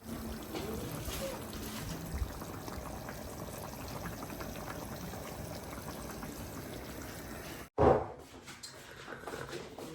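Steady running or pouring water that cuts off abruptly just before eight seconds in, followed by a brief loud sound.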